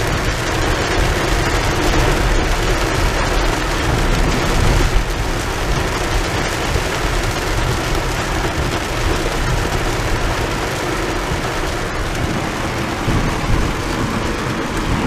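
Heavy rain falling steadily on the roof and windows of a moving car, with the hiss of tyres on the flooded road.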